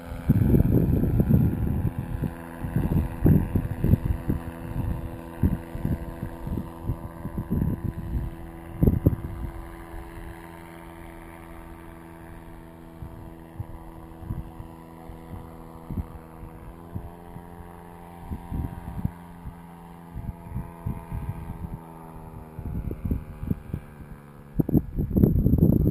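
Distant paramotor engine droning steadily as the powered paraglider flies overhead, its pitch shifting slightly partway through. Wind gusts buffet the microphone, loudest at the start and again near the end.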